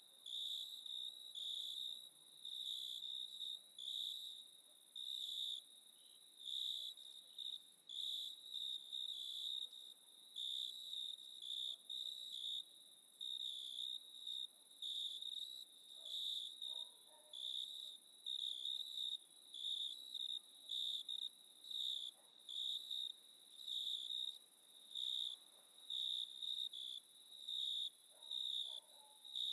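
Crickets chirping at night in a steady, even rhythm of high pulses, about one a second.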